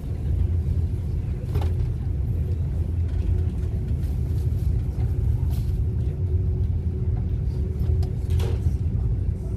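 Steady, heavy low rumble of the Argo Wilis diesel train standing at or creeping into the station, with a steady hum over it and a few light clicks.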